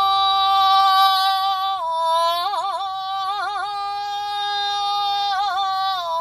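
A man chanting shigin (Japanese recitation of Chinese-style poetry) solo, drawing out the last word of the poem in one long held note. The pitch steps down about two seconds in, then back up, and is decorated with short shaking pitch ornaments (yuri) in the middle and again near the end.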